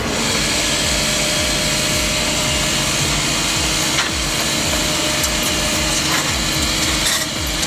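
Logging machinery running steadily while cutting wood, with a low pulsing engine note under a dense sawing noise; a few sharp cracks come about four and six seconds in.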